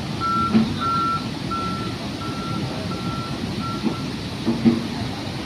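Heavy vehicle's reversing alarm beeping, six evenly spaced high beeps a little over one a second that stop about four seconds in, over the steady low running of its engine with a few knocks.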